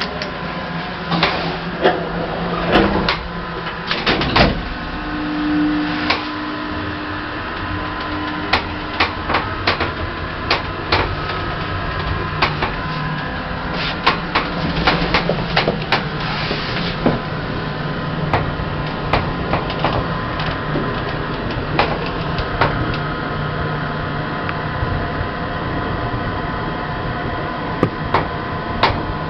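Passenger lift in operation: a steady low hum under repeated clicks and knocks, with a short steady tone for a few seconds about five seconds in.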